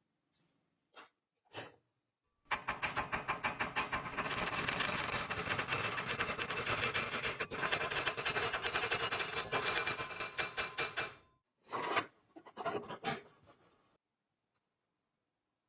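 Rapid, repeated scraping strokes on metal, as in hand cleaning or filing of an old machine part. A few faint knocks come first, and the scraping sets in about two and a half seconds in, runs steadily, then breaks into a few last strokes and stops.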